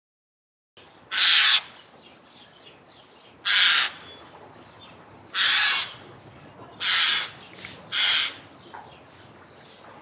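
Eurasian jay giving five harsh, raspy calls, each about half a second long and one to two seconds apart, with faint background noise between them.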